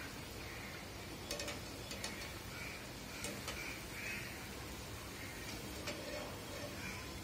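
Urad dal vadas deep-frying in hot oil, a steady sizzle, with a few faint clicks. Short bird calls sound now and then through it.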